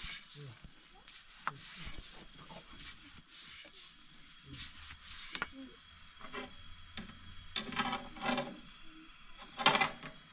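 Soft rubbing and scraping as thin flatbread dough is worked with a long wooden rolling pin and spread by hand over a domed metal bread griddle. It is a string of short strokes, with a few louder scrapes near the end.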